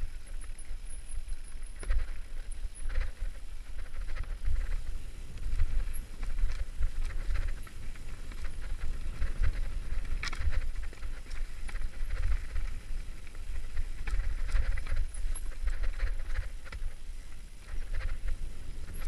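Mountain bike ridden fast over a stony trail, heard on a rider-mounted camera: a constant low wind-and-vibration rumble with irregular rattling clicks from the bike and the stones under the tyres.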